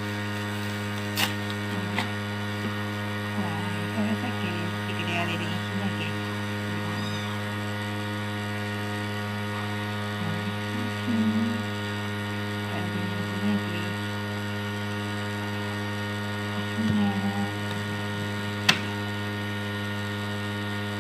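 Steady electrical mains hum, with a few sharp clicks and faint scattered handling noises from the package being unboxed.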